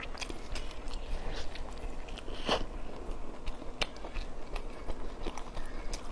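A person chewing a mouthful of steamed bun (baozi) close to the microphone: irregular mouth clicks, with one louder click about two and a half seconds in.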